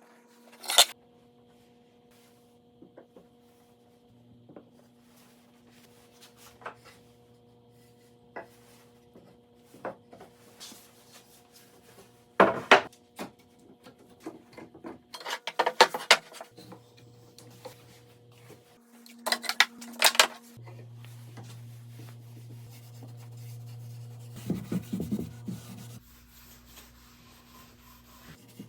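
Wooden pieces handled and rubbed against each other, with scattered knocks and short scraping bursts, the loudest near the start, around the middle and about two-thirds through, over a faint steady hum.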